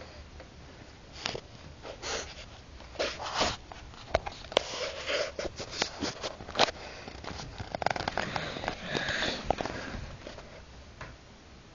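A Pekingese dog sniffing and rooting at a bedsheet: quick, irregular sniffs mixed with rustling and scratching of the fabric, busiest in the middle and dying down near the end.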